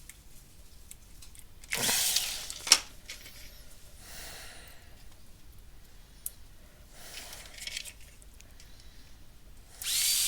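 Small screws being driven into a plastic case with a screwdriver: brief bursts of driving with a sharp click just before three seconds in, and a longer, louder run of the driver starting near the end.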